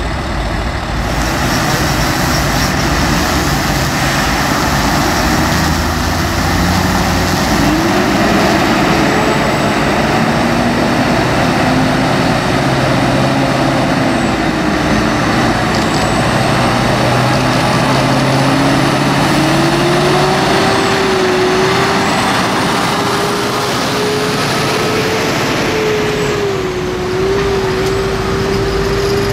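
Diesel engine of a Mercedes-Benz heavy-haulage tractor unit running under load as it hauls an 800-tonne transformer transport slowly past. Its pitch rises gradually about halfway through and then holds, and a faint high whistle comes and goes.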